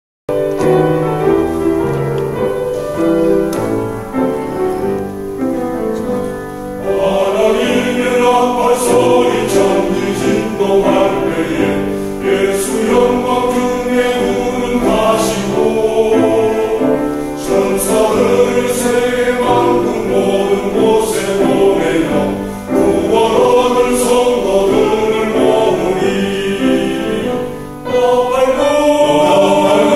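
A small vocal ensemble singing a gospel hymn; the sound grows fuller and brighter about seven seconds in.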